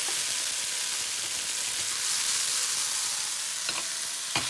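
Chicken pieces sizzling in hot oil in a frying pan, a steady frying hiss. Near the end there are two sharp knocks, the second the louder.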